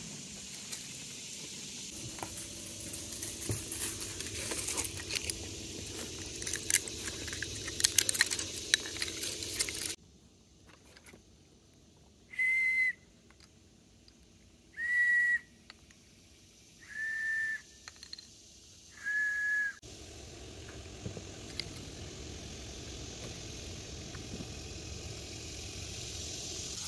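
Four small plastic frisbee whistles sounded one after another: four short, steady, high whistle tones about two seconds apart, each a step lower in pitch than the one before. Outdoor background with scattered clicks comes before them, and a steady outdoor hiss after.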